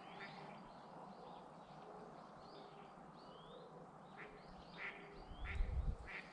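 Wild animals calling around a pond: short calls repeated again and again, mixed with quick rising chirps, at low level. A brief low rumble about five and a half seconds in is the loudest moment.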